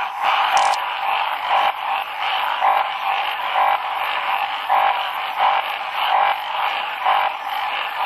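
A dense chorus of calling Dendropsophus minutus treefrogs, with a louder call rising out of it about once a second.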